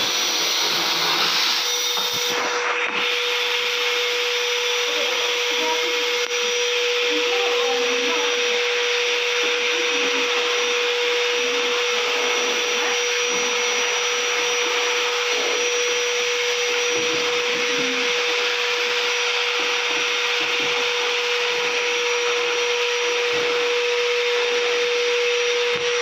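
Canister vacuum cleaner running steadily, its hose nozzle sucking dust out of a washing machine's plastic base. A steady whine sits over the rush of air.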